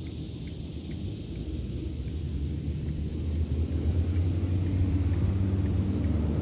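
A low rumble that grows louder over the first few seconds and then holds steady.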